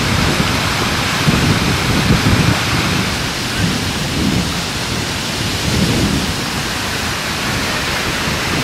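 Water gushing from a burst cold-water main: a steady, loud rushing hiss with low rumbling surges, the loudest between one and two and a half seconds in.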